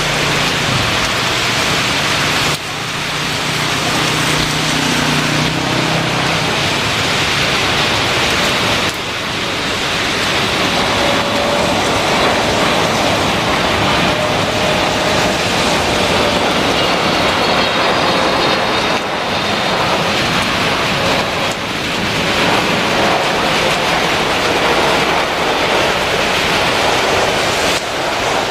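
Heavy rain hissing steadily, with the faint whine of a Boeing 777-300ER's GE90 jet engines passing through it as the airliner lands on the soaked runway and throws up spray.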